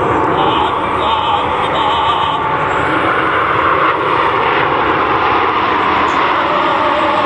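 Loud, steady jet noise from a formation of Aermacchi MB-339 aerobatic jets and their turbojet engines flying over the airfield.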